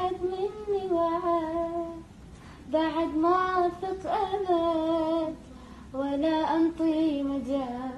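A female voice singing unaccompanied, holding long wordless notes with vibrato and ornaments in three phrases, the last trailing off near the end.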